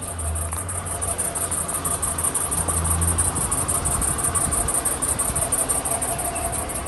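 Insects chirping in a rapid, even, high-pitched pulse, over a low rumble.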